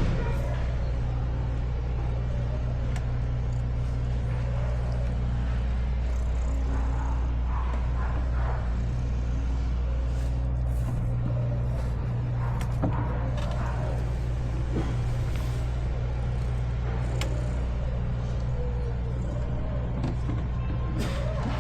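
A steady low engine drone runs throughout, with a brief sharp sound about thirteen seconds in.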